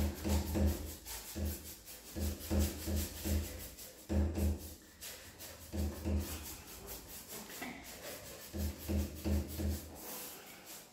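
A paintbrush scrubbing chalk paint onto a wooden cabinet's side panel in bouts of quick back-and-forth strokes, with a dull knock from the panel on many strokes. The brushing stops about a second before the end.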